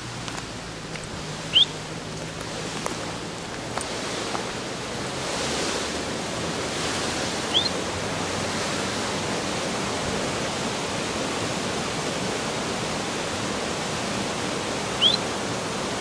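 Steady rushing of a waterfall, with three short, high rising chirps about six seconds apart standing out above it.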